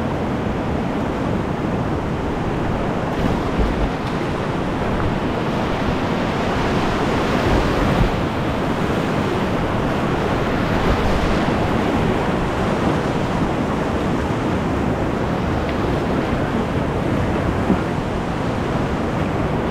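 Whitewater rapids rushing: a steady, loud wash of moving river water.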